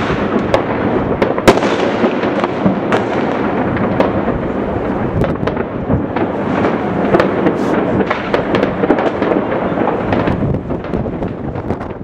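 Many fireworks and firecrackers going off at once across a city, a dense, continuous crackle of bangs and pops with no gaps, the sharpest bang about a second and a half in.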